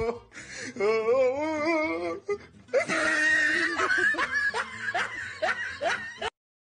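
Laughter: bursts of wavering giggling and chuckling, broken briefly about halfway through, that cut off suddenly just before the end.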